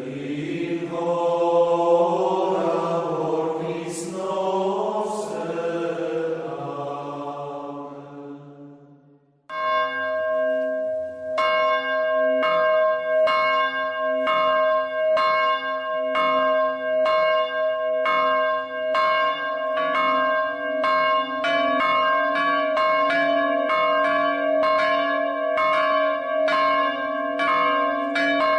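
Chanted singing for about nine seconds, which cuts off abruptly; then church bells ringing a peal, several strikes a second with long ringing tones that overlap, the pattern growing busier partway through.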